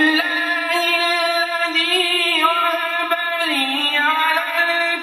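A man's solo melodic Quran recitation: one long, drawn-out phrase sung on a single breath, with wavering ornamental turns and a dip in pitch about three and a half seconds in.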